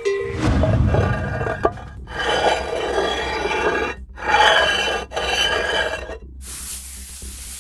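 Surface sound-effects recordings: objects scraped and rubbed across a surface, first a low rumbling scrape, then three long scraping strokes with short breaks between them, giving way about six seconds in to a steady hiss.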